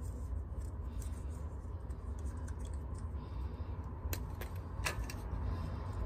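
Teflon thread tape being wrapped onto a small threaded fitting by hand: light crackles and small clicks, with two sharper clicks about four and five seconds in, over a steady low rumble.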